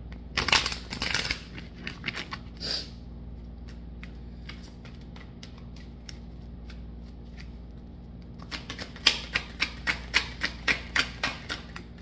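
A tarot deck being shuffled by hand: a loud riffle of the deck split into two halves about half a second in, then a run of quick card clicks, about four a second, from a little after eight seconds in.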